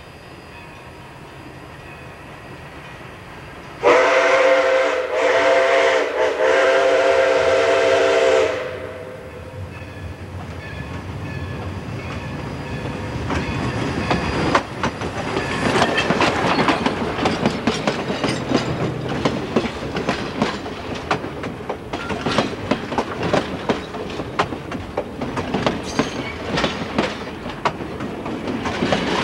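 Baldwin 2-8-2 steam locomotive sounding its chime steam whistle about four seconds in: one long blast of about four and a half seconds that dips twice. Then the locomotive and its passenger cars roll past close by, growing louder from about ten seconds in, with wheels clicking and knocking steadily over the rail joints.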